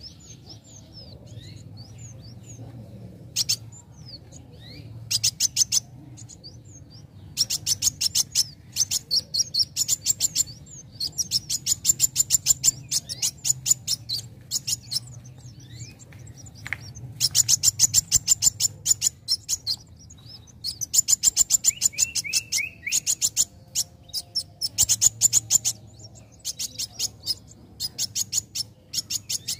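Young male Van Hasselt's sunbird (kolibri wulung) singing: rapid, high-pitched chattering trills in repeated bursts of one to two seconds, with a short lower descending trill about two-thirds of the way through.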